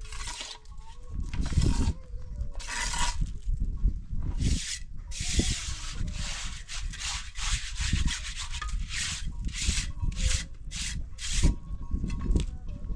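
Steel mason's trowel scraping cement mortar along the top of a concrete block wall, in a string of short scraping strokes about one to two a second, coming faster in the second half, with dull knocks of the trowel on the blocks underneath.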